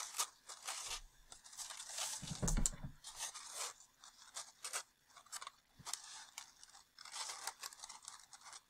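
Construction paper rustling and crackling as a curved sheet is flexed and pressed against a flat sheet by hand, with a dull bump about two and a half seconds in.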